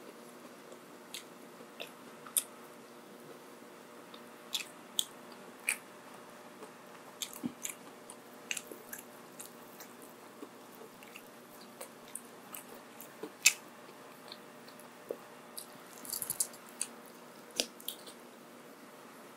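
Close-miked eating: a person chewing and biting mouthfuls of fast food, with irregular sharp wet clicks and smacks between quieter chewing.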